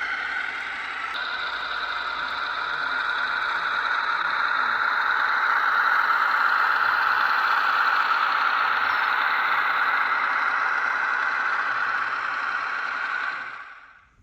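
Jägendorfer VT 92.3 model diesel railbus running on layout track: a steady rattle and whir of the model in motion, fading out near the end.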